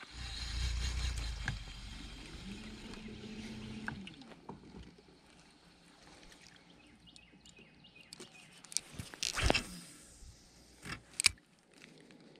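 Bow-mounted electric trolling motor running in the first few seconds: a low rumble, then a hum that rises and falls in pitch. After that it is quieter, with a few sharp clicks about nine and eleven seconds in.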